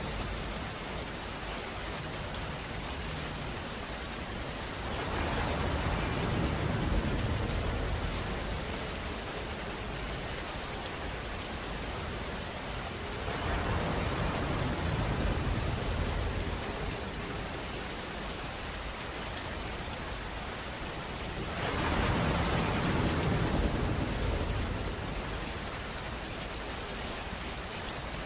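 Steady rain, a dense even hiss. It swells louder three times, for a few seconds each, with a deeper low rumble in each swell.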